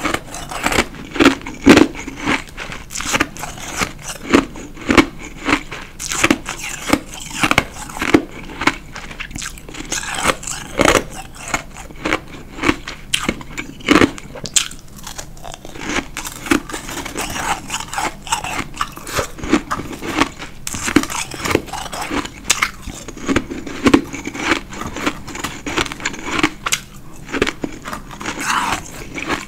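Close-up crunching and chewing of a chunk of white ice, a run of sharp crunches coming about once or twice a second.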